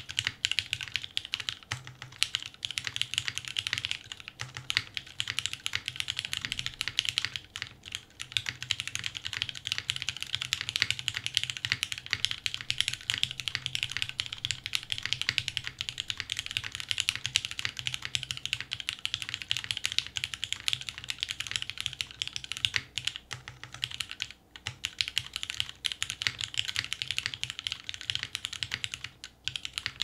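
Continuous typing on a Monokei x TGR 910 v2 ME mechanical keyboard: lubed Cherry MX Black Hyperglide linear switches in a top-mounted polycarbonate plate under GMK keycaps, giving a dense, steady stream of keystrokes with a few brief pauses.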